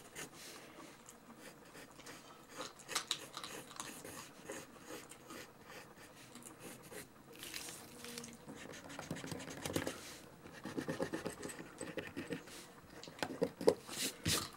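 A dog crunching food with a run of irregular crackly clicks, densest and loudest in the last five seconds or so, over the soft scratch of a pencil on paper.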